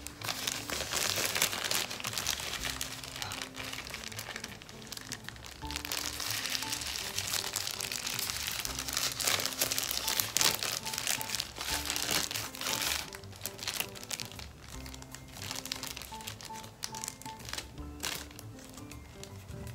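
Thin plastic hand mask pack, a glove-shaped sachet filled with lotion, crinkling as it is handled and pulled open, over soft background music.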